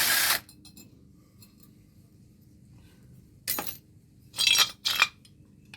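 A power drill's whirr cuts off just after the start; then loose metal scrap parts clink and rattle in three short bursts in the second half.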